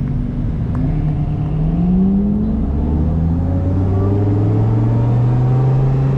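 A car engine accelerating over road noise. Its pitch rises for the first two seconds, drops at a gear change about two and a half seconds in, then climbs slowly again.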